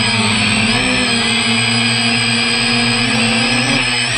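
DJI F330 quadcopter's brushless motors and propellers whining steadily in flight, heard close up from a camera on the frame, the pitch wavering slightly as the throttle changes.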